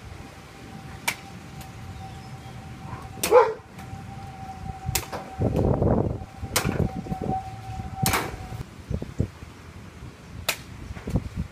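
Katana cutting rolled tatami mat targets: a series of sharp, sudden cutting strikes, spaced a second or two apart. The loudest strike comes about a third of the way in with a short bark-like yelp on it, and a faint steady tone runs underneath until near the end.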